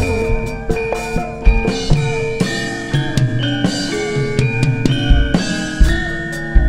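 Live band of Javanese gamelan and drum kit playing an instrumental passage: regular drum and percussion hits under sustained melody notes, with no singing.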